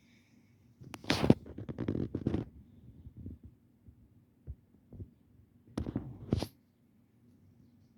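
Rustling and scuffing with low thumps, in two bursts: one about a second in lasting a second or so, and a shorter one near six seconds, with a couple of soft single knocks between.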